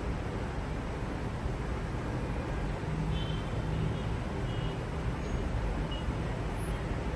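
Steady city traffic noise with a low rumble, with a few short, faint high beeps.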